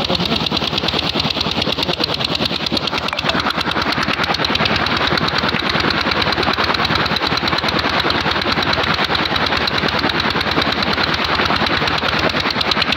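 Tubewell pump engine running with a rapid, steady chugging beat, and a full stream of water gushing out of the pump's outlet pipe onto the ground.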